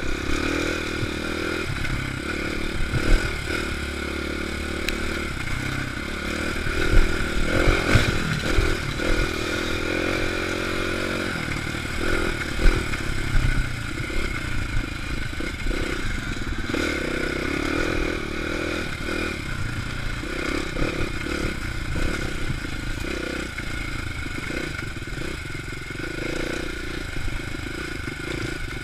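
Dirt bike engine running as the bike is ridden along a trail, its pitch rising and falling with the throttle. Rattles and a few sharp knocks come from the bike over rough ground.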